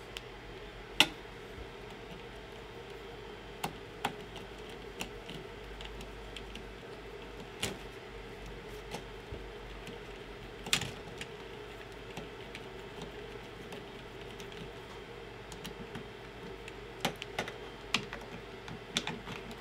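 Scattered small clicks and taps of hands and a screwdriver working on a Prusa i3 MK3S 3D printer's plastic parts and cables, with a sharper click about a second in, over a steady faint hum.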